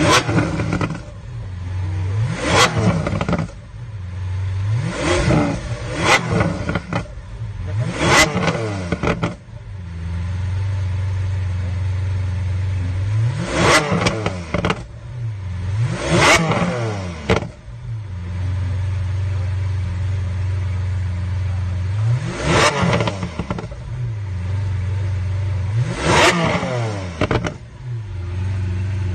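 High-performance car engine idling and being blipped hard about eight times, each rev rising sharply and falling back to idle, with a longer stretch of steady idle in the middle.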